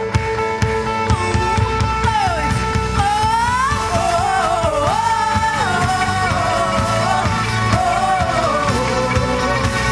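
Live gospel rock band playing over drums and bass, with a lead melody that slides and bends up and down in pitch.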